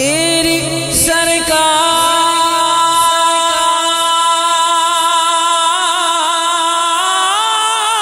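A man singing a devotional rubai in a high voice, holding one long, slightly wavering note for most of the time. Near the end his voice rises and bends into new notes.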